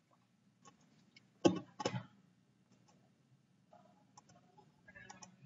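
Computer mouse clicking: two sharp clicks close together about a second and a half in, with a few fainter clicks around them over a faint low hum.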